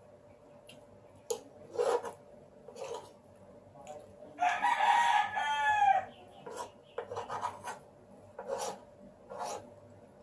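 A rooster crows once, about four and a half seconds in, for about a second and a half, ending on a falling note. Around it come short wet clicks and smacks of someone chewing and eating spaghetti close to the microphone.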